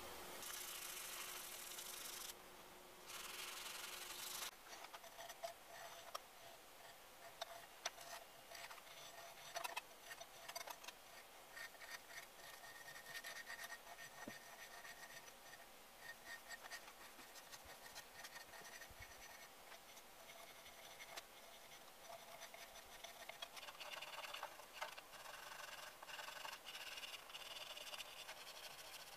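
Faint rubbing and scraping of a spring-steel cabinet scraper's edge, cut from a kataba saw blade, pushed back and forth on a sharpening stone to square its sides.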